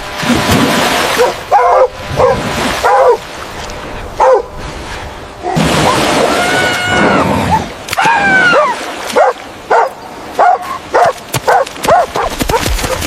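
A dog barking and whining over and over in short yips, with a few longer whining calls, as if in distress.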